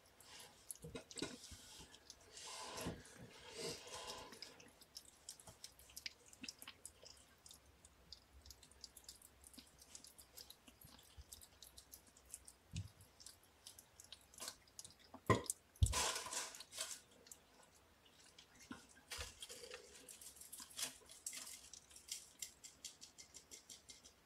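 Kittens playing and being handled on a paper-covered floor: scattered light rustles, taps and clicks, with two louder knocks about fifteen and sixteen seconds in.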